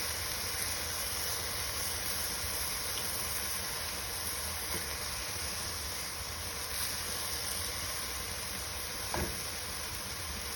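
Ground meat sizzling steadily in hot olive oil in a frying pan as it browns to well done, with one light click about nine seconds in.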